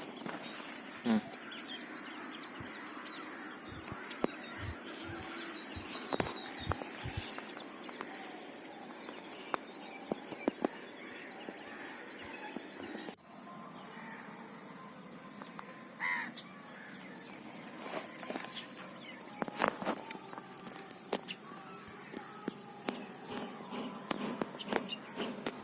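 Outdoor rural ambience: insects trilling steadily at a high pitch, with an occasional bird call and scattered faint taps and knocks.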